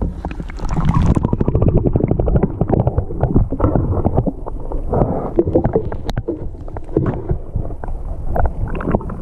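Muffled underwater rumbling and gurgling, with many quick knocks and crackles of water moving around a submerged camera; it starts suddenly at the beginning.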